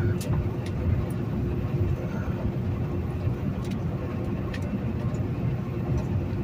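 Semi truck's engine and road noise heard inside the cab while driving at highway speed: a steady low drone with a constant hum and a few faint scattered clicks.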